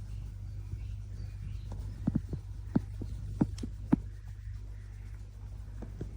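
Steady low hum, with a quick cluster of about seven sharp clicks and knocks about two to four seconds in.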